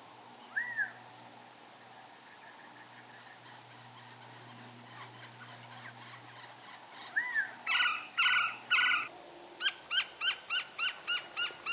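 Wild birds calling in the desert at dawn. Soft low hooting notes repeat in the background, with a couple of single whistled notes. About eight seconds in come three louder calls, followed by a fast run of sharp repeated notes, about three or four a second.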